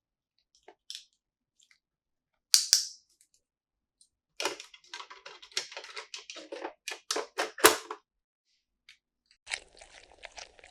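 Small plastic toy pieces being handled: a few light clicks, one sharp snap about two and a half seconds in, then a quick run of clicks and rattles, and a rustle near the end.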